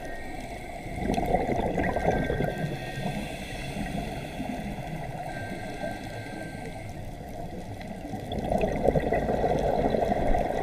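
Scuba diver's breathing underwater, heard through the camera housing: a regulator's exhaled bubbles gurgling twice, about a second in and again near the end, with a steady low watery rush between.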